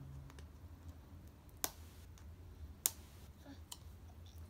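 Sharp plastic clicks from an L.O.L. Surprise ball being handled and opened at its zipper tab: two distinct clicks about a second and a quarter apart, with a few fainter ticks between.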